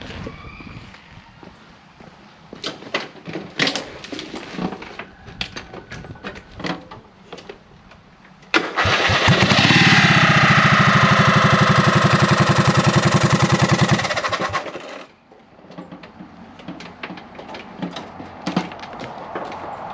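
Scattered clicks and knocks, then a Briggs & Stratton lawn-mower engine starts about eight and a half seconds in, runs loudly and steadily for about six seconds, and is shut off. The owner suspects the engine cover is on wrong and traces the problem to the plastic dipstick piece under the cover rubbing against the flywheel.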